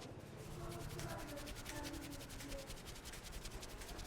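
Hands rubbing vigorously over a scalp and hair during an Indian head massage: a fast, even rhythm of short scratchy strokes, many to the second.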